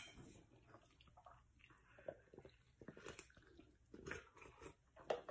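Faint sips and swallows with a few small clicks, from drinking out of a stainless steel tumbler packed with ice; the sounds are scattered through the second half.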